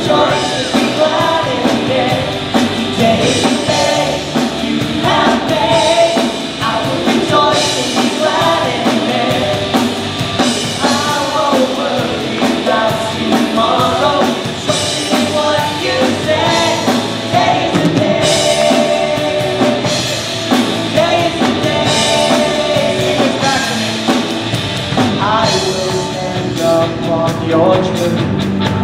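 Live worship band playing an upbeat rock song: a male lead singer and female backing singers over electric guitars and keyboard.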